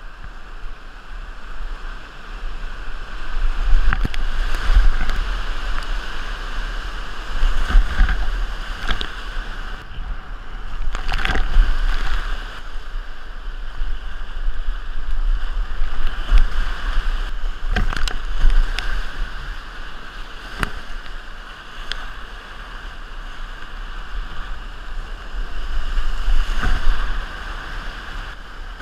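Whitewater rapids rushing around a kayak, heard close up from a camera riding on the paddler, with spray splashing over it. It swells louder in the bigger waves, and sharp knocks come several times.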